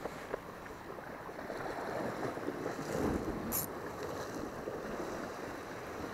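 Sea waves washing against shoreline rocks, with wind on the microphone; the wash swells about two to three seconds in, with a brief high hiss shortly after.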